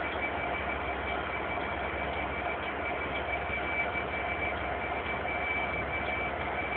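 Trains standing in a station with their engines idling: a steady low hum with a thin, constant high whine over it.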